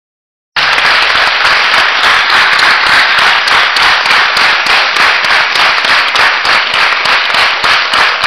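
Audience applauding: loud, dense clapping that starts about half a second in.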